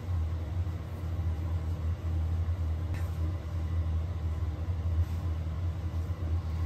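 Steady low rumble of a car engine idling.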